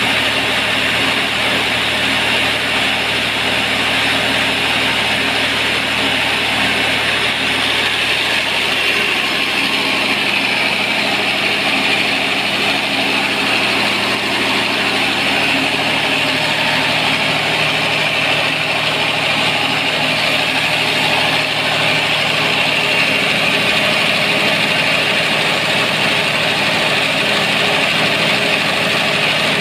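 Cummins diesel generator-set engine running steadily at a constant speed, with its turbocharger and fan. The engine is running on its newly replaced drive belt, with the tensioner removed.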